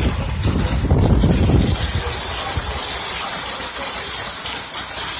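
Heavy rain pouring down with a steady hiss, with muddy runoff water rushing along a flooded street. A low rumble dies away about two seconds in.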